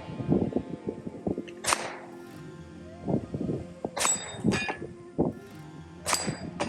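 Steel targets clanging and ringing as rounds strike them, four sharp hits a second or two apart, each leaving a high ring, over background music.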